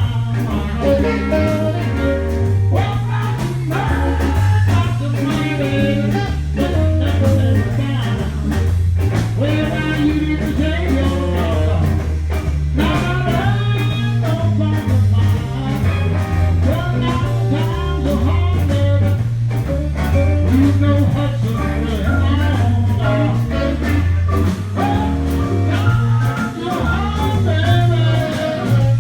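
Blues band playing live: a bass line moving note to note under a steady drum beat, with electric guitar and a singer.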